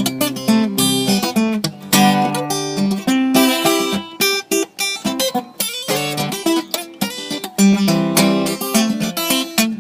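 Acoustic guitar strummed in a steady chord pattern, an instrumental break between verses of a singalong drinking song.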